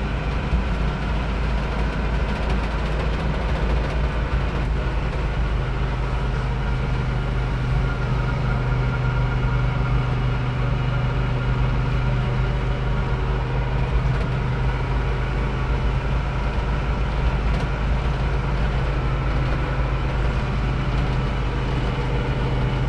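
Volkswagen T1 bus's rear air-cooled flat-four engine running while driving, heard from inside the cab as a steady low drone mixed with road noise.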